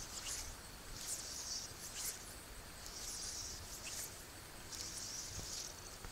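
Fly line swishing during false casts: a series of soft hisses, about one a second.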